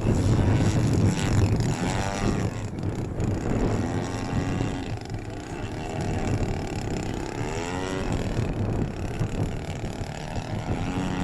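Single-cylinder two-stroke DL-50 gas engine of a large radio-controlled aerobatic plane running, its pitch sweeping up and down a couple of times as the plane is throttled and manoeuvred, with wind noise on the microphone.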